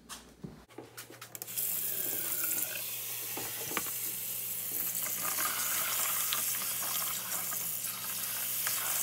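Kitchen faucet running into a sink and a plastic bowl while celery and carrots are rinsed by hand. The water comes on about one and a half seconds in and then runs steadily, with a few light knocks of vegetables against the bowl.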